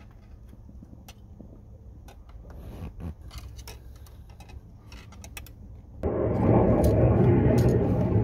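Thin metal engine-oil dipstick being slid back down its tube, with faint scrapes and small clicks. About six seconds in, a loud, steady rushing rumble starts abruptly and drowns it out.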